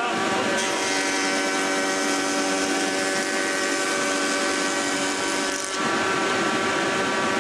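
Logosol H410 jointer-planer running with a steady hum, while a wooden board is pushed edge-down along the fence over the cutterhead. The cut adds a hissing whir from about half a second in until near six seconds, when the board clears and the machine runs free.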